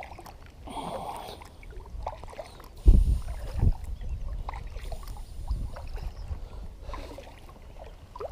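Kayak sounds on the water: scattered light knocks and water noise, with a heavy low thump about three seconds in and a smaller one just after.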